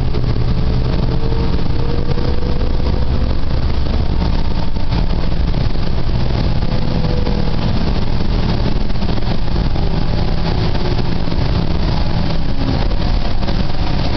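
Interior of a moving 2009 New Flyer DE60LFR hybrid bus, powered by a Cummins ISL diesel with an Allison EP50 hybrid drive: a steady low drivetrain drone under road noise. A faint whine slides slowly up in pitch in the first half.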